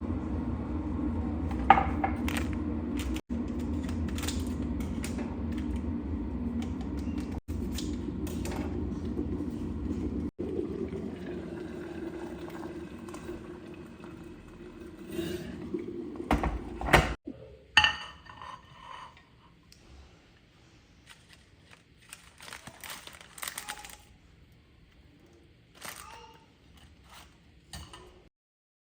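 A steady low motor hum with a few clicks, stopping abruptly about two-thirds through, followed by scattered light clinks of dishes and utensils.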